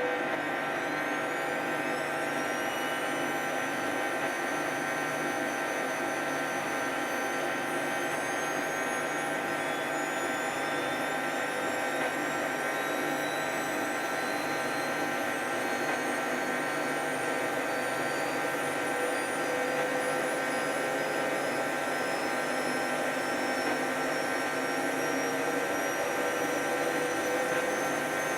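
Hoover 10 kg front-loading washing machine on its spin cycle, the drum speeding up toward 1400 rpm. It runs steadily with a motor whine that slowly rises in pitch.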